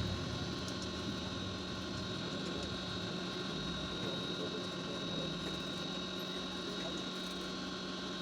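Steady mechanical hum from a running machine, with a constant low tone and a faint high whine.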